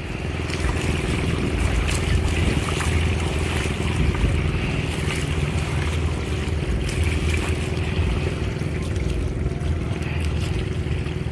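Paraw outrigger sailboat moving under sail: water washes and splashes steadily against the hull and outrigger, with wind buffeting the microphone in a low rumble.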